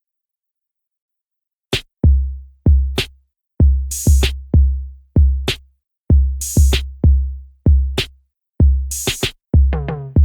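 Electronic drum-machine beat starting about two seconds in after silence: deep bass-drum kicks in a steady rhythm with short bright cymbal-like hits between them, and pitched synth notes joining near the end.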